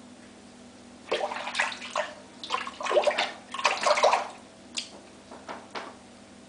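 Water splashing at a bathroom sink as a safety razor or face is rinsed during a wet shave: a stretch of uneven splashes lasting about three seconds, then three short splashes.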